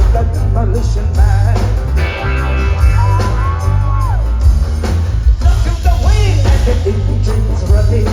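Live band with heavy bass and drums, a woman singing over it; she holds one long note about three seconds in.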